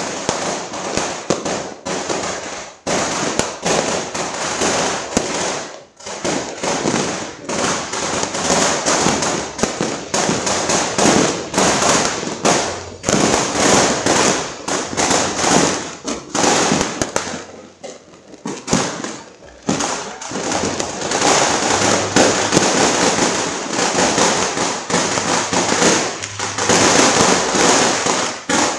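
Firecrackers and fireworks going off without pause: a dense crackle of overlapping bangs that thins out briefly a few times.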